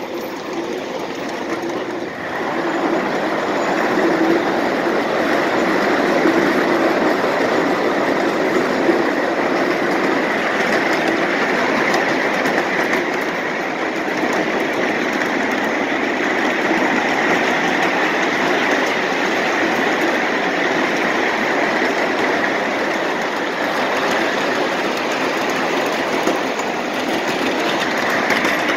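A 7½-inch gauge miniature riding train rolling along, its wheels running on the rails with a steady noise that grows louder about two seconds in.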